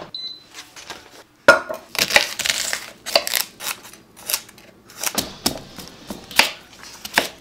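Chef's knife chopping raw vegetables on a wooden cutting board: irregular knife strikes on the board and the crunch of the blade cutting through onion, carrot and sweet potato.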